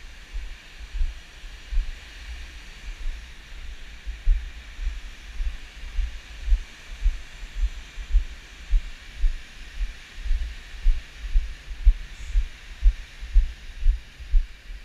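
Walking footsteps heard as dull low thuds through a body-worn camera, about two a second, over a steady rushing hiss from the river below.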